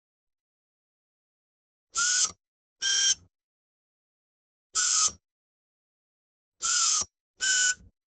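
Electric screwdriver's motor whirring in five short bursts of about half a second each, the trigger pulled in quick pairs and then released each time, with a whine that dips slightly as each burst ends.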